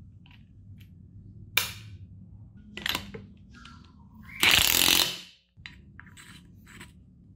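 Metal parts of a Vespa front fork clacking and scraping as they are handled and fitted together by hand: a sharp clack about a second and a half in, another near three seconds, then a louder scrape lasting most of a second around the middle, with smaller clicks after.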